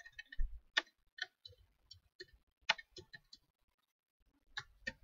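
Computer keyboard keys tapped one at a time in an irregular run of faint, sharp clicks while text is deleted and retyped. The clicks pause for about a second before two more near the end.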